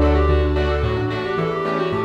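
Instrumental background music, with low bass notes changing every half second or so under higher sustained notes.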